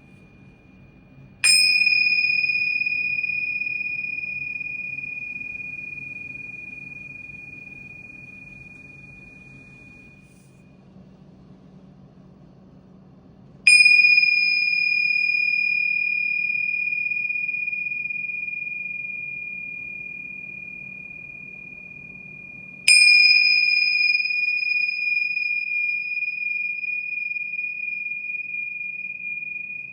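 Antique tingsha, the pair of small Tibetan cymbals, struck together three times, each strike ringing one clear, high, pure tone that fades slowly over about ten seconds. The tail of an earlier ring dies out just before the first strike, and the last ring is still sounding at the end.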